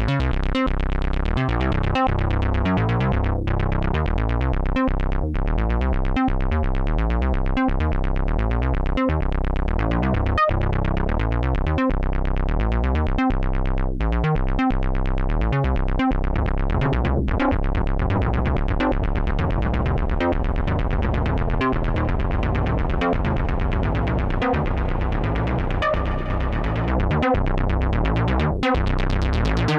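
Dreadbox Typhon monophonic analog synthesizer playing a fast repeating sequence of notes over a deep bass. The tone changes about halfway through.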